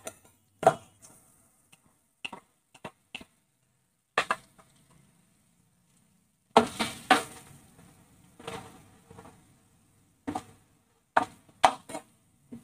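Steel spatula knocking and scraping against a nonstick kadai as freshly ground spice paste is stirred and fried in hot oil. It comes as a series of sharp clicks, with a busier stretch of stirring and sizzling about halfway through.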